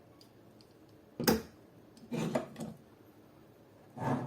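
Small rifle parts being handled on a workbench: faint ticks, one sharp clack about a second in, then a few softer knocks and rattles.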